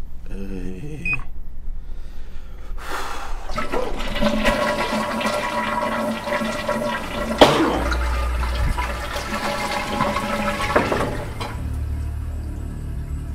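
Rushing water that starts suddenly about three seconds in and runs for about eight seconds, with a sharp knock midway, then dies away.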